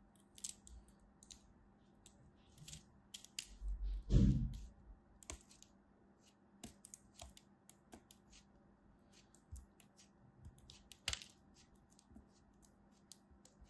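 Kinetic sand being sliced with a thin blade and broken apart by hand: irregular soft crisp crunches and crackles, with a louder crumbling crunch and dull bump about four seconds in and a sharp tick near eleven seconds.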